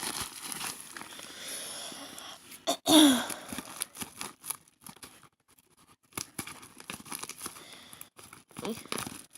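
Package wrapping crinkling, rustling and tearing as a mail package is pulled open by hand, with scattered small clicks and a quieter stretch in the middle. A brief voice sound comes about three seconds in.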